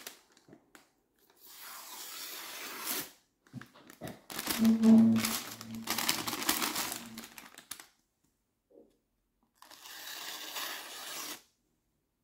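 Thin sheet of paper being sliced with a Taxus Habilis bushcraft knife to test the sharpness of its edge. It comes as three spells of dry rustling and crackling, with a brief low hum about five seconds in.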